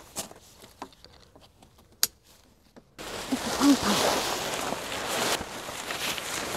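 Car shelter tent fabric rustling as it is pulled out and spread over gravel, starting abruptly about three seconds in. Before that it is quiet apart from a few small clicks and one sharp click about two seconds in.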